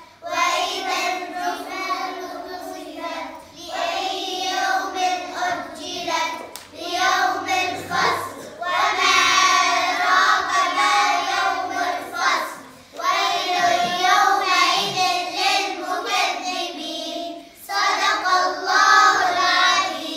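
A group of young girls singing a song together in unison, in phrases of several seconds with short breaths between them.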